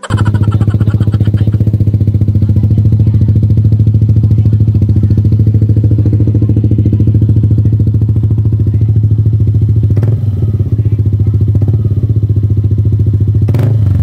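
Yamaha Aerox 155's single-cylinder four-stroke engine idling steadily and loudly through an aftermarket HGM slip-on muffler on a stainless pipe. There are two brief clicks, one about ten seconds in and one near the end.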